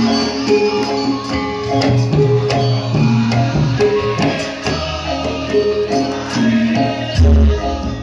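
Live traditional Indonesian ensemble music: short melodic phrases repeat over a steady drum pulse, with frequent jingling or cymbal-like percussion strokes.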